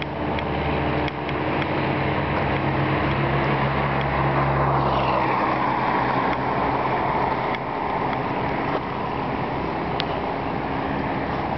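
An engine running with a steady hum. About five seconds in, a louder rushing sound builds, with a whine that falls in pitch.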